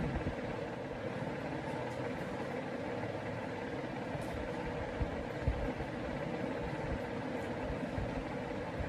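Steady background hum with no speech, broken by a couple of faint low thumps about five seconds in.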